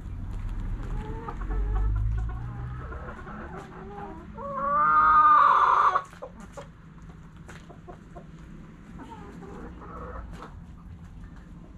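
A rooster crows once about four seconds in, a loud call of under two seconds that cuts off sharply, among hens clucking softly. Light sharp taps of pecking at grain on the ground come throughout, with a low rumble close to the microphone near the start.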